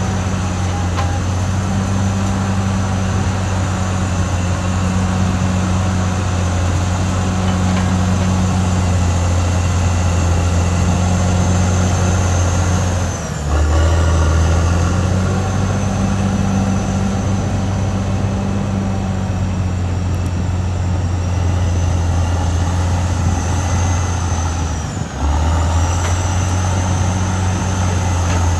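Caterpillar D6R XL bulldozer's diesel engine running steadily under load. The engine note drops briefly twice, about 13 seconds in and again about 25 seconds in, then picks back up.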